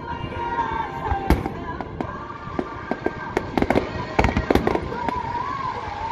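Aerial fireworks shells bursting: one sharp bang about a second in, then a rapid run of bangs and crackles between about three and five seconds in. Music plays underneath throughout.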